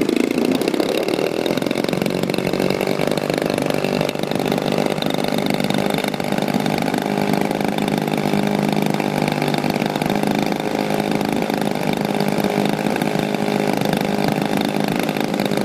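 DLE 55 RA single-cylinder two-stroke gasoline engine on an RC plane, running at a steady speed with a buzzy, chainsaw-like note.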